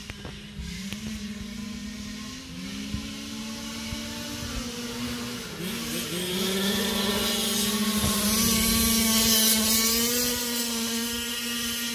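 1/5-scale RC car's 30.5cc two-stroke gasoline engine running hard, its buzzing pitch rising and falling as the throttle is worked. It grows loudest about halfway through as the car passes close.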